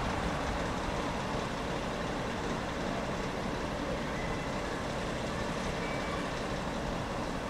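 WD diesel shunter's engine idling, a steady rumble.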